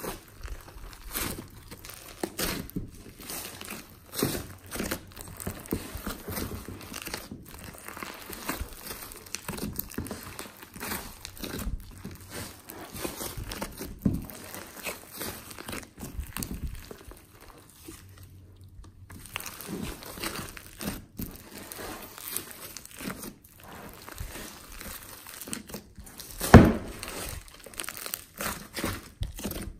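Glossy slime mixed with foam and clay being squeezed and kneaded by hand, making dense, irregular sticky crackles and pops. One louder squish comes about 26 seconds in.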